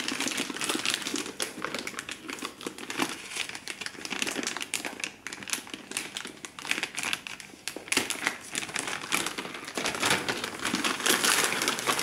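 Plastic packaging crinkling and rustling as the audio interface is unwrapped and handled, a dense irregular crackle.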